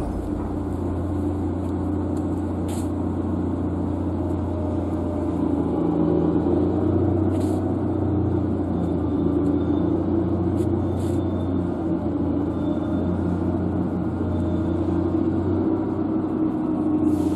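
Steady low engine rumble that holds an even pitch, with a few faint clicks over it.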